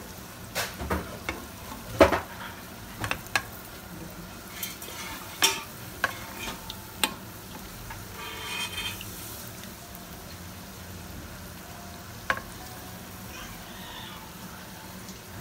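Bread pakoras sizzling in shallow hot oil in a frying pan, while metal spoons clink sharply a dozen or so times, mostly in the first half, as the fried pieces are lifted and drained of oil.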